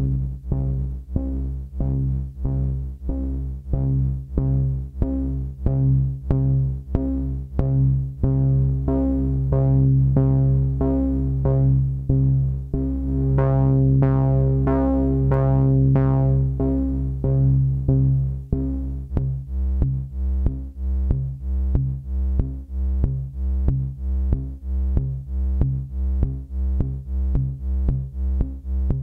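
MFOS Sound Lab Mini-Synth playing one repeated low note at about two notes a second, each note shaped by its AR envelope through the VCA. The notes swell into long, almost continuous tones in the middle, then go back to short plucks that die away quickly as the envelope's attack and release knobs are turned.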